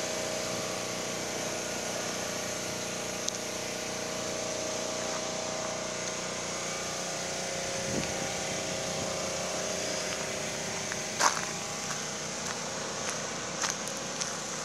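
Generator engine running steadily, a constant hum made of several steady tones. Near the end, a few short crunches of footsteps on gravel and debris.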